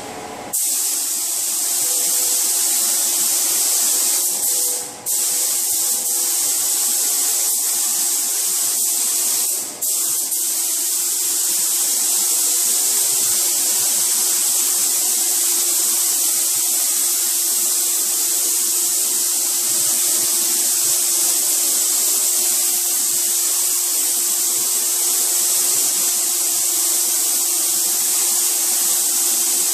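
Compressed-air gravity-feed spray gun spraying paint onto a car bumper: a steady, loud hiss, broken by two brief pauses about five and ten seconds in.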